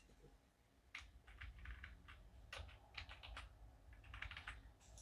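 Faint typing on a computer keyboard: irregular runs of keystrokes starting about a second in, while plan prices are looked up.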